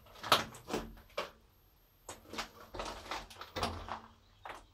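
Irregular knocks and scuffs in a small hard-walled room. They come in a cluster at the start, pause, then come thicker for a couple of seconds, with one more knock near the end.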